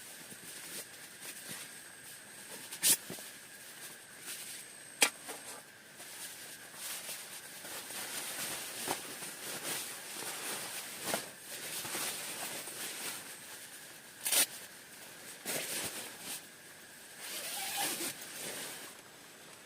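Close handling noises: rustling and scraping with a few sharp clicks or knocks, three of them standing out.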